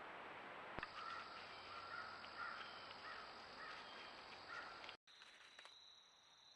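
Crows cawing, about six calls over roughly four seconds, over the steady hiss of a trail camera's microphone. The calls stop with an abrupt cut about five seconds in, leaving fainter hiss and a thin high steady whine.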